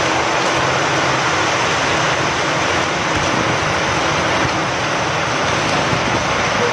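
Steady rain falling with wind: an even, unbroken hiss.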